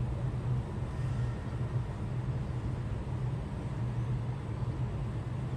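Steady outdoor background noise with an even low rumbling hum.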